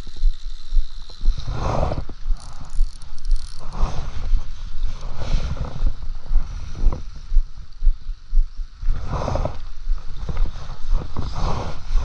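Gusty wind buffeting an outdoor camera microphone, a low rumble with irregular swells of noise every second or two.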